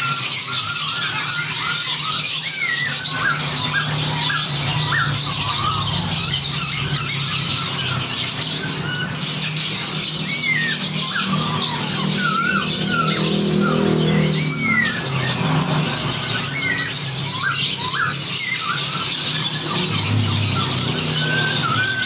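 Many songbirds singing and chattering over one another in a dense chorus, full of short rising and falling whistles and chirps over a steady high hiss of chatter, with a faint low hum underneath.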